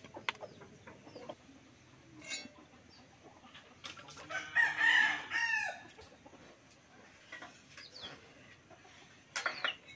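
A rooster crowing once, a call of about a second and a half that falls in pitch at its end, with shorter chicken calls before and near the end.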